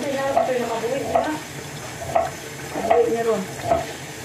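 Live string-tied crabs handled in a tub of water: water sloshing and dripping, with many short clicks of shells knocking together.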